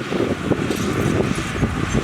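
Heavy earthmoving machinery running with a low rumble and irregular clatter.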